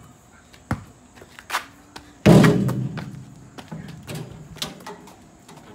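Basketball striking a backyard hoop's backboard and rim. One loud bang about two seconds in rings on for about a second, with several lighter knocks before and after.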